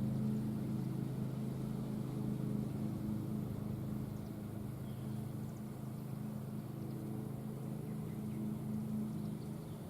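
A motor running steadily, a low, even hum that holds its pitch.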